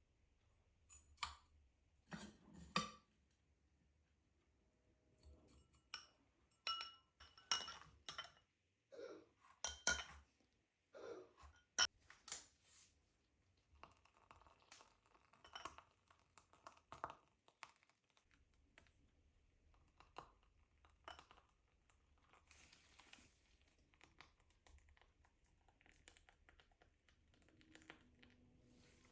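Dishes and glassware clinking and clattering as they are handled, with a run of sharp clinks and knocks, some briefly ringing, in the first half, then fainter, scattered clatter.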